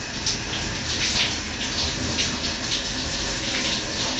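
Overhead shower running, its water spattering unevenly onto a wet dog and the tiles of a small shower stall.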